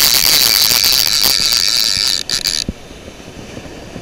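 Bait clicker of a vintage PENN No. 77 Sea Hawk direct-drive casting reel ratcheting in a fast stream of clicks as the handle is cranked to reel in a hooked fish. The clicking breaks off about two and a half seconds in and drops much quieter.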